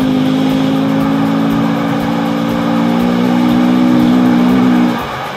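Honda CRF250L's single-cylinder four-stroke engine running at a steady speed, a held, even drone that drops away about five seconds in.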